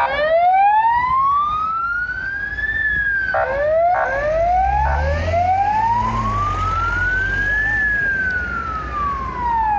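Police car siren wailing in slow sweeps, each rising for about three seconds and falling again. It is broken twice, about three and four seconds in, by short blasts of a different tone, and a low rumble comes in around five seconds in.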